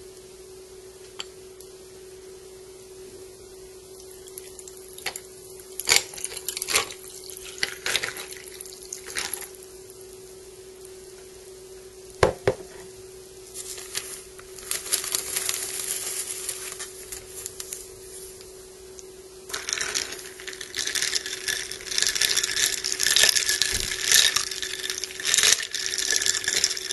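Tea poured from a porcelain teapot over ice cubes in a glass, the ice cracking and clicking as the tea runs over it, with a splashing pour about halfway through. From about two-thirds of the way in, a spoon stirs the iced tea, rattling and clinking the ice against the glass, the loudest part. A steady low hum lies under it all.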